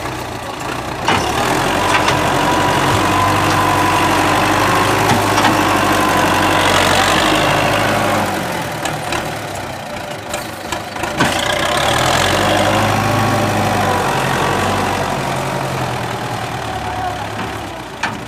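Belarus tractor's diesel engine working under load as it hauls a trolley fully loaded with sugarcane, revving up about a second in, easing off around the middle, then pulling hard again before dropping back near the end.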